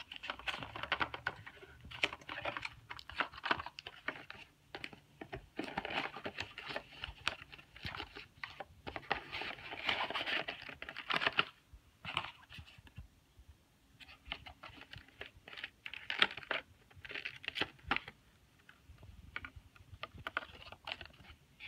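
Hands opening the retail packaging of a GoPro Hero 5 battery: irregular clicking, rustling and crinkling, in spells separated by short pauses.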